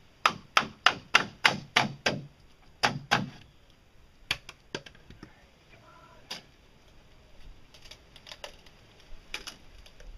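Wooden mallet knocking on the edge of a fiberglass half hull to work it loose from its mold: about nine quick blows, some three a second, in the first three seconds, each with a short low ring. After that come scattered lighter clicks and cracks as the hull edge is pried by hand.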